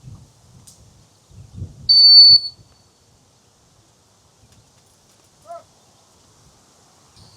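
A single blast on a retriever handler's whistle, one steady high note about half a second long, used to stop and direct the dog running a blind retrieve.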